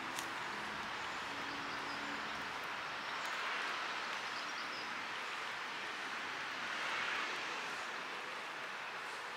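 Steady outdoor city background of distant traffic, swelling slightly twice, with a few faint bird chirps.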